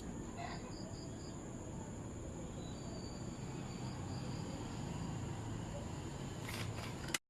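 Faint crickets chirping over low, steady background noise, with a thin high steady tone. A short click comes just before the sound cuts out abruptly near the end.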